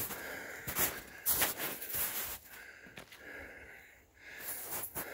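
A person walking over rough ground: irregular footsteps, with their breathing close to the microphone.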